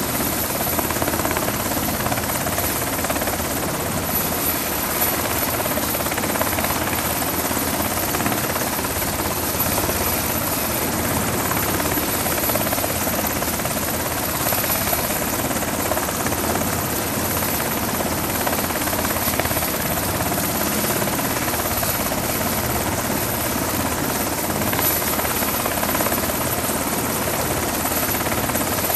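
Coast Guard MH-60T Jayhawk helicopter running on a ship's flight deck, rotor turning and twin turboshaft engines running in a steady din with a thin high whine on top.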